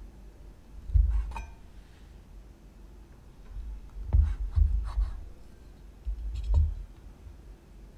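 Kitchen knife cutting down through the crust of sandwich bread onto a wooden cutting board: several dull knocks of the blade on the board, about a second in, three close together around the middle, and one more near the end, with light scraping between them.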